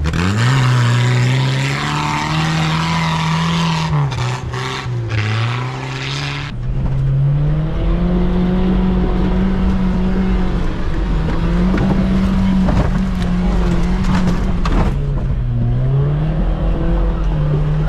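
Suzuki off-road 4x4 engines revving up and down as they crawl over rough forest ground. About six seconds in the sound cuts from one vehicle's engine to the engine under the camera. There are a few sharp knocks along the way.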